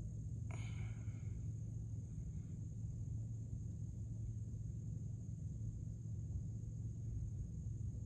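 Steady low hum and rush of conditioned air coming out of a floor supply vent while the central AC's indoor blower runs.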